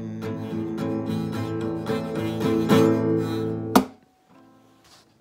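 Classical nylon-string acoustic guitar strummed and picked in the closing bars of a song. About four seconds in, a sharp slap of the palm across the strings cuts the sound off.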